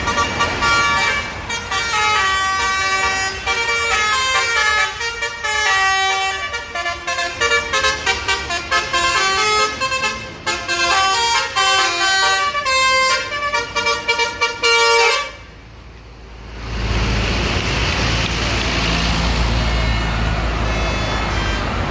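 A coach's roof-mounted basuri telolet air horns playing a quick melody of stepped notes for about fifteen seconds, then cutting off. After a short lull, the steady low rumble of a coach's engine passing close.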